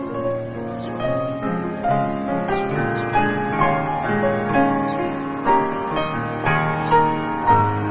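Background piano music, notes struck in a gentle steady rhythm of about two a second.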